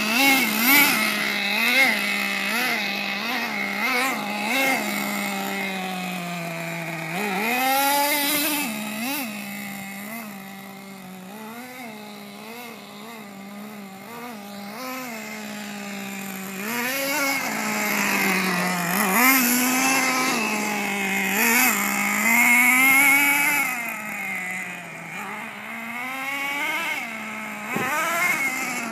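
Small single-cylinder nitro engine of a Team Associated MGT 3.0 RC monster truck running hard, its pitch swinging up and down with the throttle. The revs are quick, about twice a second, for the first few seconds, then come in longer runs. It is fainter for several seconds in the middle.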